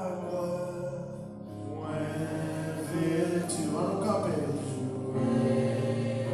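Electronic keyboard playing slow gospel music in long held chords.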